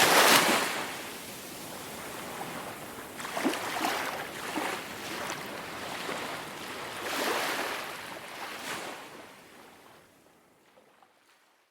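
Ocean waves breaking and washing onto a shore, with a loud surge at the start and softer swells about four and seven seconds in. The sound then fades out gradually to near silence.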